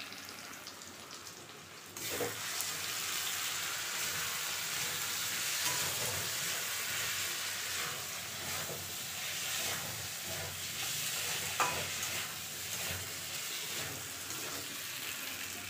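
Aloo posto (potatoes in poppy-seed paste) sizzling in hot oil in a kadai while a metal ladle stirs and scrapes the pan, with an occasional sharp clink. The sizzle gets louder about two seconds in and then holds steady.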